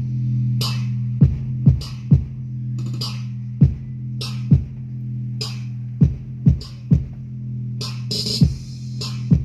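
Electronic music with a strong held bass line and deep kick drums that drop in pitch, with sharp snare or clap hits, played loud over a sound system during a sound check.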